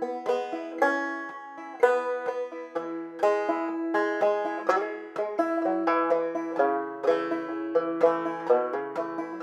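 Open-back banjo played clawhammer style: a run-through of the full arrangement, a steady stream of sharply struck, ringing notes over a droning string, with lower bass notes entering about three seconds in.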